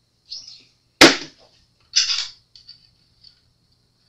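A sharp knock about a second in, then a brief scraping rustle a second later and a few faint ticks: small hardware and tools being handled on a workbench.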